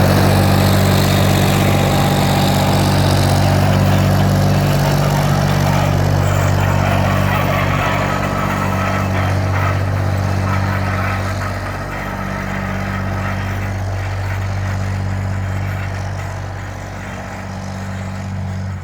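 Car engine running steadily during a test drive after repair: a low, even drone with a broad hiss over it, easing off a little in the last several seconds.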